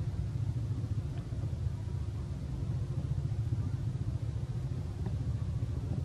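A steady low rumble with no sudden events.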